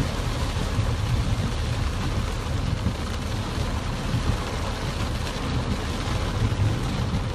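Steady heavy rain on a car, heard from inside the cabin, over the low rumble of the car driving through floodwater.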